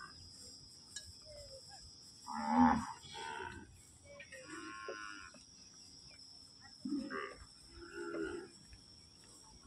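Kankrej cattle lowing in several short calls, the loudest about two and a half seconds in, over a steady high insect trill.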